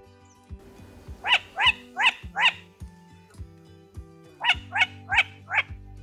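Crane calls: two runs of four loud, short, ringing calls, each call bending up and then down in pitch, the first run a little after a second in and the second near the end. Background music with low repeating notes plays throughout.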